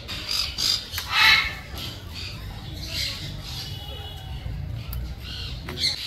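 Cockatoo in a guava tree giving a few short harsh squawks while it chews at the branches, with one thin high call a little after four seconds.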